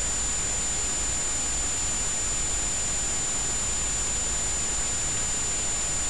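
Steady, even hiss with a thin high-pitched whine running through it, unchanging throughout; no other sound is heard.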